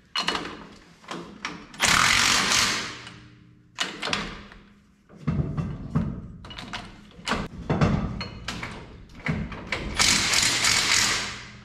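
Bearing retainer nuts being tightened on a Dana 44 rear axle end: two bursts of a tool running the nuts down, each about a second and a half, one about two seconds in and one near the end. Between them come scattered metal clinks and knocks of the tool on the retainer plate and studs.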